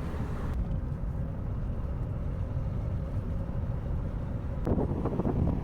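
Wind buffeting the microphone over a steady low rumble of a moving vehicle's motor; voices begin near the end.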